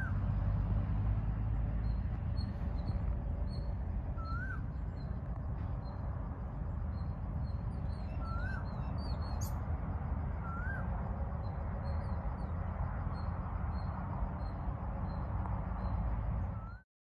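Outdoor ambience with a steady low rumble. Over it, a bird repeats a short rising whistled note every few seconds, with faint high chirps alongside. The sound cuts off abruptly near the end.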